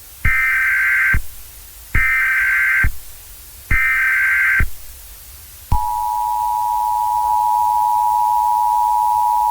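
Emergency Alert System header: three short bursts of warbling data tones, then, about six seconds in, the steady two-pitch attention tone starts, announcing a new emergency alert.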